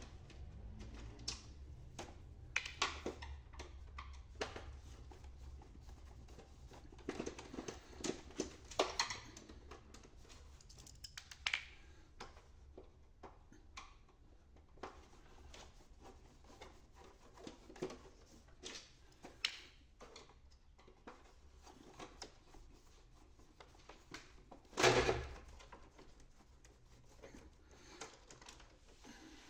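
Screwdriver and hands working on the plastic casing of an HP Officejet 6500 printer while its support screws are being removed: scattered light clicks, taps and scrapes, with a louder clatter near the end.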